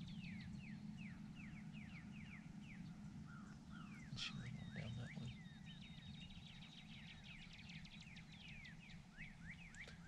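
Small birds chirping faintly, running quick series of short falling notes again and again, over a low steady rumble.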